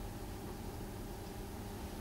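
Steady indoor room tone: a low, even hum under a faint hiss, with no distinct sounds.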